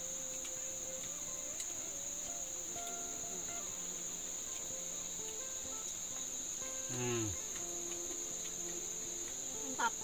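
Steady high-pitched insect chorus, crickets or similar forest insects, with a short falling tone about seven seconds in and a short rising tone near the end.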